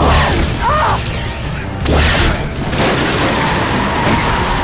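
Action-movie car-chase soundtrack: dramatic film music with loud crash and impact effects, one hit at the start and another about two seconds in.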